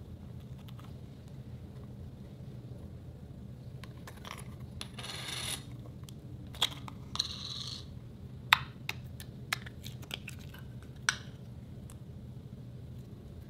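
Clear slime being handled, peeled and stretched by hand: two brief stretches of crinkly, sticky noise, then a run of sharp clicks and pops, over a steady low hum.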